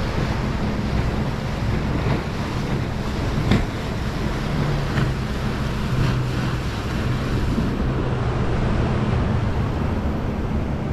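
Steady wind noise rumbling on the microphone, over the wash of rough water by the shore.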